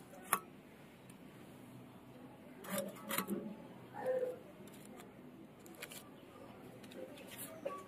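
Fish-handling sounds: a few short scrapes and clicks from a hilsa being scaled on a boti blade, then soft knocks and rustles as the cut hilsa pieces are set down on a plastic sack sheet. The louder handling comes in a cluster around the middle.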